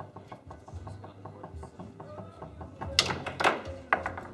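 Foosball being played on a Tornado table: the ball taps and clacks against the men and rods in quick light knocks, then is struck hard about three seconds in, giving two loud cracks and a third sharp hit just after.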